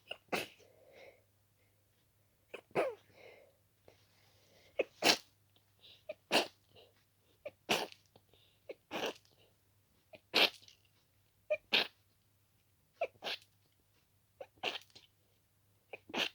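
A person sneezing over and over in a rapid, wet allergic sneezing fit: about eleven sharp sneezes, one every second and a half or less, with quick catches of breath between them. The sneezer puts the fit down to a strong dust allergy.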